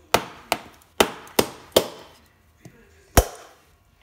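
A heavy metal blade striking a whole coconut's hard shell: five sharp knocks in quick succession, then, after a pause, one harder blow. The blows crack the shell to split the coconut open.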